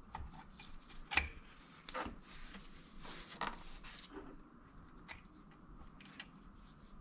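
Scattered light metal clicks and scrapes of bolts being fitted and tightened into the cap between a two-stage vacuum pump's primary and secondary stages, with one sharper knock about a second in.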